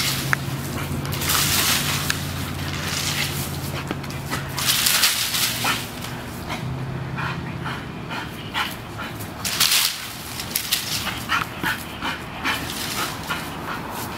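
A bull terrier's voice while it leaps at a palm tree and hangs from its fronds, with bursts of rustling from the dry fronds.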